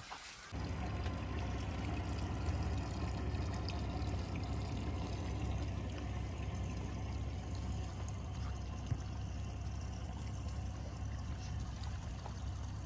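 Steady splashing and lapping of seawater against the water's edge or a hull, with a low rumble underneath.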